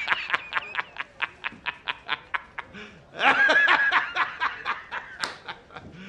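A man laughing hard: a rapid run of short "ha"s, about six a second, breaking into a louder, longer laugh about three seconds in, then trailing off in quieter pulses of laughter.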